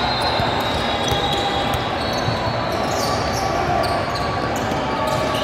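Basketball bouncing on a gym court during a game, with players' and spectators' voices under it.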